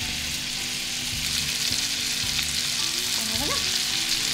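Seasoned fish fillets sizzling in hot melted butter in a frying pan as they are laid in, a steady hiss that grows louder about a second and a half in as more pieces go into the pan.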